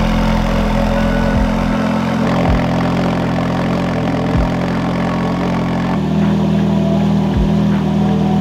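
Ferrari F430 Spyder's 4.3-litre V8 idling steadily through a valveless aftermarket exhaust, its catalytic converters replaced by resonated test pipes. The idle note shifts slightly about six seconds in.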